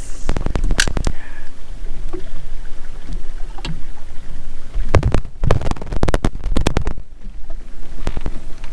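Steady low rumble of wind on the microphone aboard a small open fishing boat, broken by clusters of sharp knocks about half a second in and again from about five to seven seconds.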